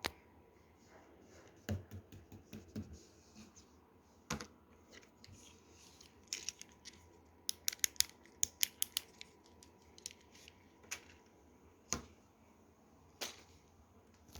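Fidget toys being handled: scattered sharp clicks and taps, with a quick run of clicks between about seven and nine seconds in and a few duller knocks early on.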